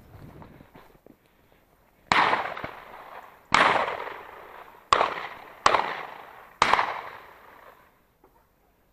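Five shotgun shots in quick succession, each cracking sharply and then trailing off in a fading echo. The last three come less than a second apart.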